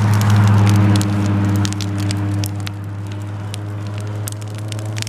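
Bonfire crackling and popping, with sharp snaps all through, over a loud, steady, low droning tone that eases a little after about a second.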